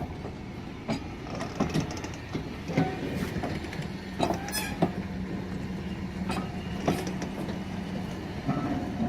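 Train moving slowly during shunting: scattered clanks and knocks from the wheels and couplings, with a steady low engine drone setting in about four seconds in.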